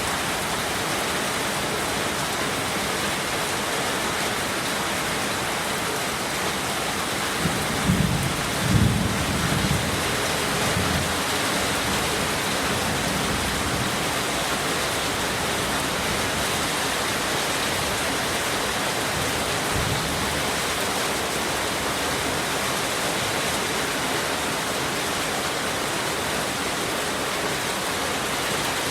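Steady heavy rain, an even hiss. A few short low thuds or rumbles come about eight to ten seconds in.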